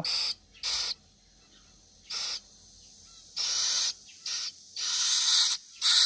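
Fledgling Asian koel giving about seven harsh, hissing begging calls at irregular intervals with its red mouth held open, begging to be fed rather than pecking the fruit itself.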